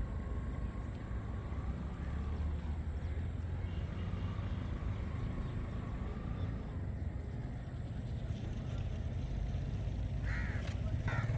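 Steady low outdoor rumble, with two short bird calls near the end.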